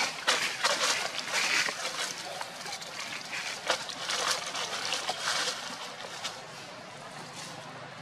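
Dry fallen leaves crackling and rustling in irregular bursts, busiest for the first five seconds or so, then dying down to a faint hiss.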